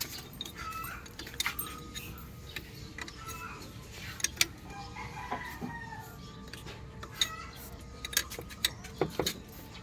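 Scattered sharp clicks and knocks of hand tools on the engine while a loose crankshaft pulley is being taken off, with short pitched calls between them.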